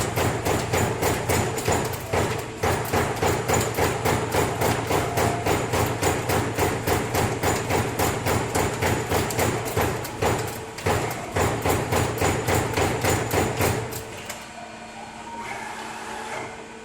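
CNC punch press punching sheet metal: a fast, even run of sharp punch strokes at about four a second, with two short pauses. The strokes stop near the end, leaving a quieter steady machine hum.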